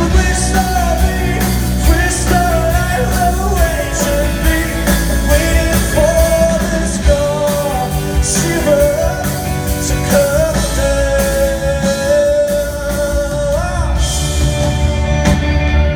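A singer and band perform a song live. The singer holds long, wavering notes over steady drum hits and band accompaniment.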